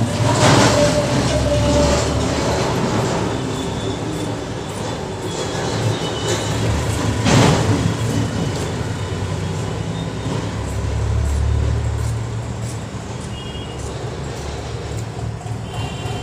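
Large dressmaking scissors cutting through cotton cloth along a marked line, over a steady low rumble. Two louder rustling surges come about half a second and seven seconds in.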